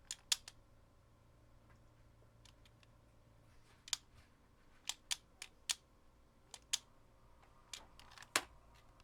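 Short, sharp clicks at irregular intervals, about fifteen in all, some coming in quick runs of two or three.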